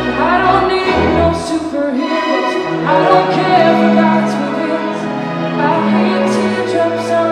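Live chamber orchestra with choir performing a pop ballad: a singing voice with vibrato over sustained string and piano chords.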